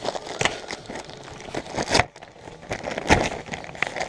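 Christmas wrapping paper crinkling and rustling as a present is unwrapped, in irregular bursts, the loudest about three seconds in.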